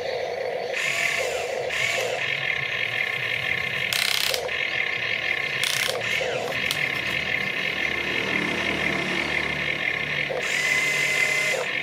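Radio-controlled excavator's electric motors and gear drives whirring as the boom, arm and bucket move, a steady high whine rising into louder grinding bursts several times, the longest about ten seconds in.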